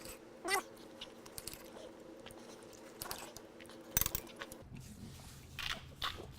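A person chewing and biting into steak, with scattered short clicks and knocks, a louder one about half a second in and another about four seconds in.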